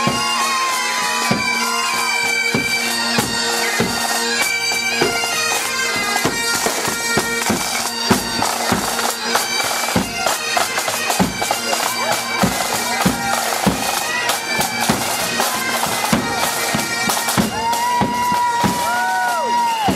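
Bagpipes playing a tune over their steady drone, with regular drum beats.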